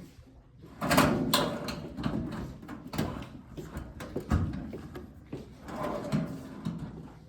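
Kitchen range storage drawer being fitted onto its rails and slid back in: scraping along the rails with several knocks and clunks, the loudest about a second in.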